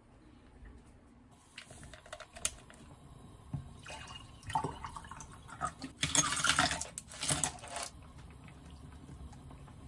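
A clear drink poured from a plastic bottle into a tall glass over ice. The pour starts about four seconds in, splashes loudest near the end and stops about two seconds before the close, after a few light clicks earlier on.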